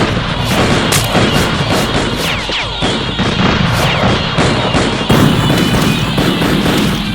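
Film gunfight: rapid gunfire, shots coming several times a second, over music.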